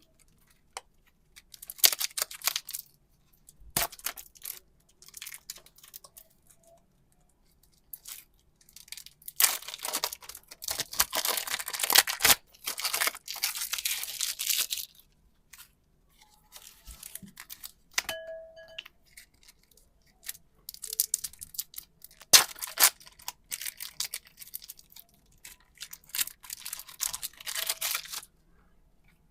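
Close-up crinkling and tearing sounds of super clay being unboxed and handled. They come in irregular crackly bursts of one to a few seconds, with short pauses between them.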